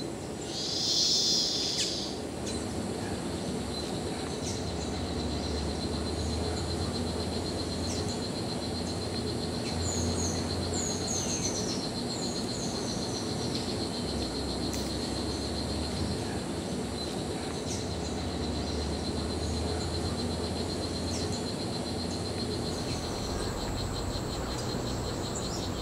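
Tropical forest ambience: a steady, high-pitched insect trill, with several short runs of quick, falling bird chirps near the middle, over a low rumble. A short burst of noise comes about a second in.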